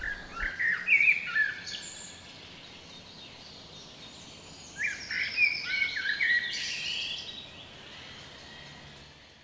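Songbird singing two short phrases of quick, high chirping notes, one at the start and one about five seconds in, over faint outdoor background noise that fades out near the end.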